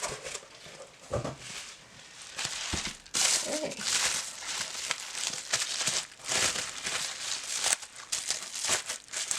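Packaging being unwrapped by hand: packing material crinkling and rustling with sharp crackles. It is sparse at first and turns loud and continuous about three seconds in.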